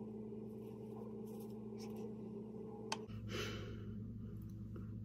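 Faint scratchy strokes of a small edge brush smoothing gelled hair along the hairline, over a steady low hum. A sharp click comes near three seconds in, after which the hum drops lower.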